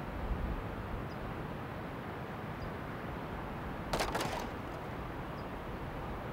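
Outdoor ambience: a steady hiss with wind rumbling on the microphone, and faint short high peeps about every second and a half. About four seconds in comes a brief rattling clatter of several quick clicks.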